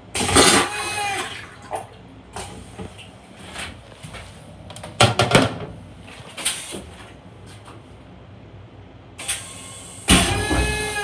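A Long Island Rail Road M7 railcar toilet with a stainless-steel bowl flushing: a loud rush with a whine lasting just over a second at the start, and a second flush starting near the end. In between come several sharp knocks and clacks.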